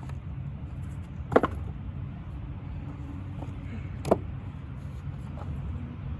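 An axe chopping wood: two sharp strikes about three seconds apart, the first the louder.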